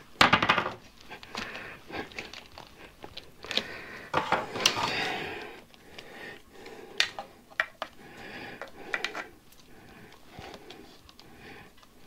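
Handling noise from pressing a Tannus airless tire's retaining pins into a bicycle rim with a tool: irregular clicks and knocks, a loud clatter just after the start, and a stretch of scraping about four seconds in.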